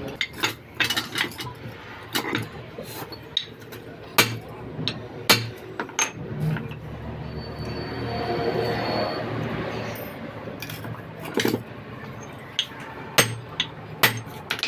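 Irregular metal knocks and clinks of hammer and hand tools on steel, a dozen or so sharp strikes spread unevenly, while a drive shaft's universal-joint cross is being worked on. About halfway through there are a couple of seconds of rushing noise with a faint high whine.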